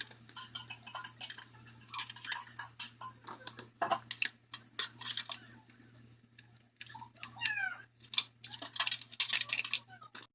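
Irregular light clicks and taps, like small hard parts being handled, over a low steady hum. Near the end a short falling, pitched call is heard.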